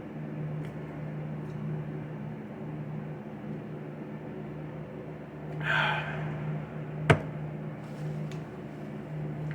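Steady low electrical hum, such as an appliance or fan running in a small room. A brief rustling noise comes about six seconds in, and a single sharp click about a second later.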